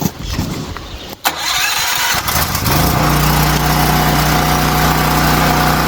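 Tri-fuel portable generator engine running on propane: it starts about a second in, speeds up, and by about three seconds settles into a steady run. The freshly serviced engine is running properly on propane.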